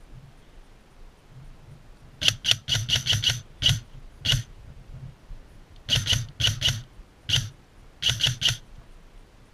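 Airsoft guns firing sharp shots in quick strings of several, with short pauses between strings, starting about two seconds in.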